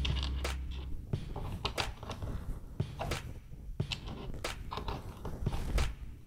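Plastic LEGO pieces clicking and rattling as they are handled and pressed together, an irregular string of small sharp clicks.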